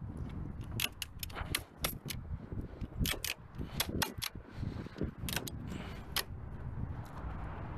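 Irregular metallic clicks and clinks of tie-down hardware being handled on a tow truck's steel diamond-plate bed, over a steady low rumble from the truck.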